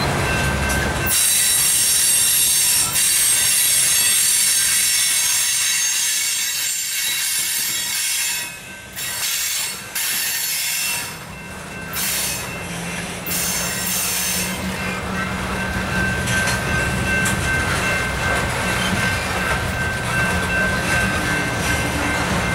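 Covered hopper cars of a grain train rolling past, their wheels squealing high from about a second in until a little past halfway, then the steady rumble and clatter of the wheels on the rails.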